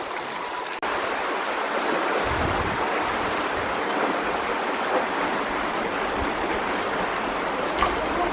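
Steady rush of the flowing Hasa stream, with a few low rumbles of wind on the microphone.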